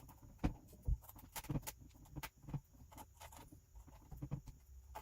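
Irregular light clicks and taps of a small screwdriver and tiny screws being worked out of a laptop's screen assembly, with a couple of duller knocks about half a second and a second in.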